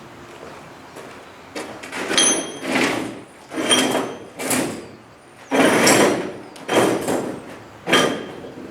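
Quarter-inch steel plates being slid and stacked on one another: a series of six or seven rough scrapes of metal on metal, some with a short high metallic ring.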